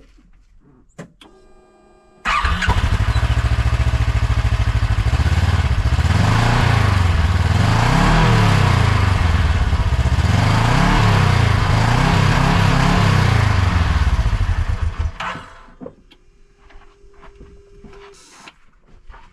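Kawasaki KRX UTV's engine starting about two seconds in, idling, then revved up and down several times before it is shut off near the end, running through its stock muffler.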